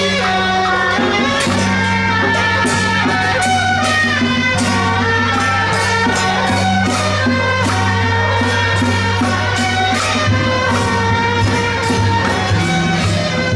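Music with a steady beat and a melody.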